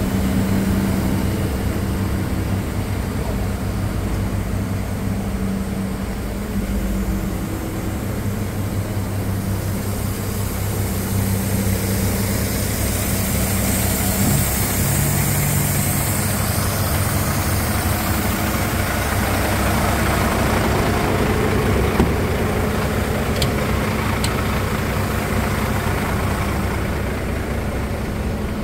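Iveco Trakker AD410T50 tipper truck's straight-six diesel engine idling steadily.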